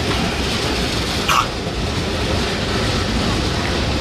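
Steady rumble of city street traffic, with a short, sharp high sound about a second in.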